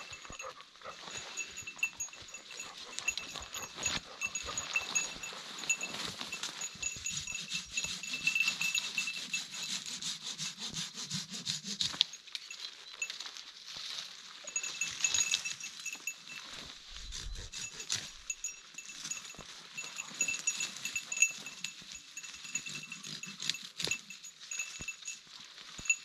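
Folding pruning saw (Silky Gomboy) cutting through alder branches in repeated back-and-forth strokes, with the brush rustling around it.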